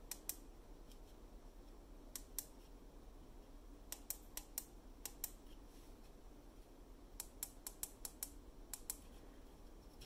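Keys of a silicone rubber keypad with metal dome switches being pressed, each dome snapping with a short, sharp click. The clicks come in pairs and in quick runs of four to six.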